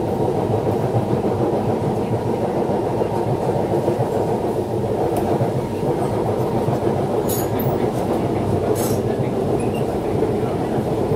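SMRT C651 electric metro train running along the line, heard from inside the passenger car: a steady low rumble of wheels on rail and running gear, with two brief sharp high clicks in the second half.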